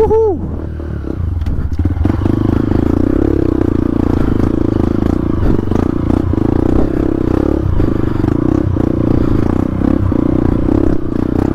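Dirt bike engine running steadily at low throttle, with clatter and scraping of the bike over rough, muddy ground; a short rev blip at the very start.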